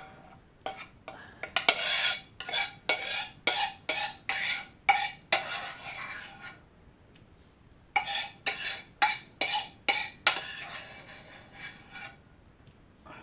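Serving utensil scraping and knocking against a pan of noodles as they are dished out into portions, about two sharp strokes a second in two runs, with a brief pause between them.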